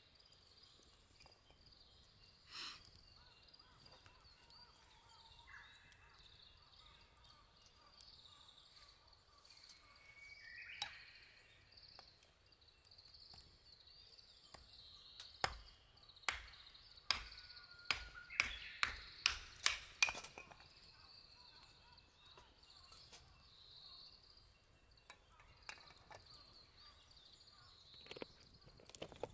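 A blade chopping kindling by hand: a run of about nine sharp knocks, about two a second, starting around the middle, over steady bird chirping.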